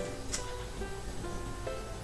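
Background music: a light plucked ukulele or guitar melody with short repeating notes. A single short click cuts in about a third of a second in.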